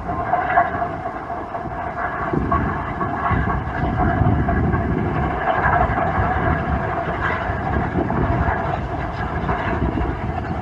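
Steam-hauled passenger train running across a viaduct: a steady rumble of the locomotive and coaches on the rails.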